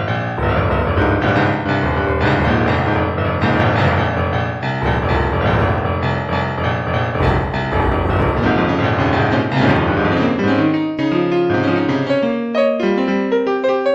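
Instrumental music led by piano, full with a deep bass at first, thinning to single piano notes for the last few seconds.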